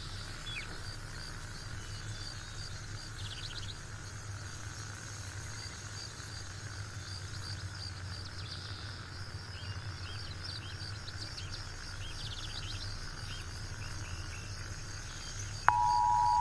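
Outdoor night ambience of insects chirping in a steady repeating pattern, with scattered bird calls over a low hum. Less than a second before the end, the Emergency Alert System two-tone attention signal cuts in abruptly and loudly.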